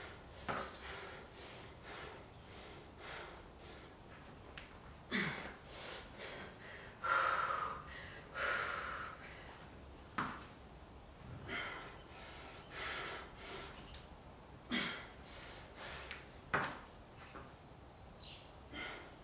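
A woman breathing hard while exercising: short, forceful exhales, some with a brief voiced grunt, every second or two, mixed with soft thumps.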